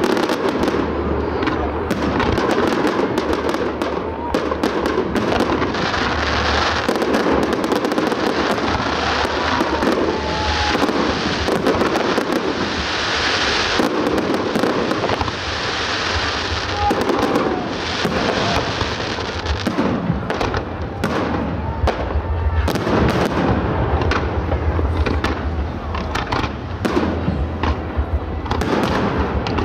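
Aerial fireworks display: a continuous barrage of shell bursts and crackling, the bangs following one another closely without a break.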